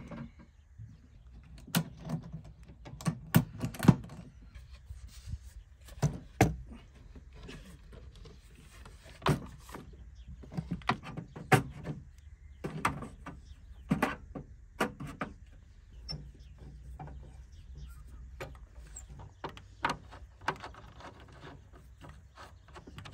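Irregular clicks, knocks and metallic clatter from a metal camp kitchen box being opened and unpacked, its telescoping legs pulled out and set up.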